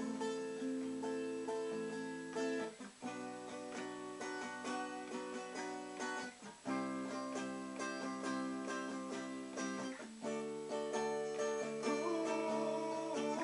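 Acoustic guitar played solo, chords ringing out with picked notes, changing chord every three or four seconds.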